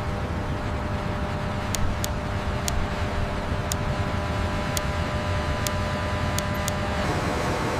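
Steady industrial machinery rumble with a faint multi-toned hum over it, and about eight sharp high ticks scattered through the middle. The hum tones drop out about a second before the end, leaving the rumble.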